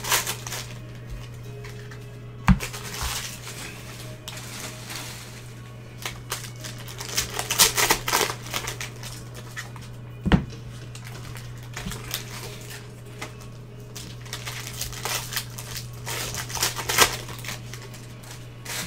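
Foil wrapper of a basketball trading-card pack crinkling as it is torn open and handled, with the cards rustling and two sharp taps, one about two and a half seconds in and one near the middle.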